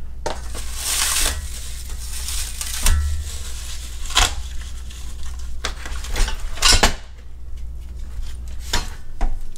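Steel parts of a Chicago Electric flat-pack welding table being handled and unpacked: a string of irregular clinks and knocks, with a rustle of packaging about a second in.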